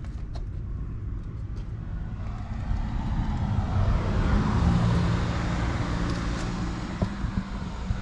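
A car passing by: its engine hum and tyre noise swell to their loudest about halfway through, then fade away.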